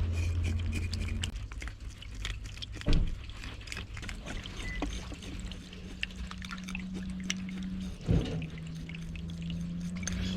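Water pouring and dripping with many small clicks and two dull thumps, about three seconds in and about eight seconds in. A steady low hum stops about a second in.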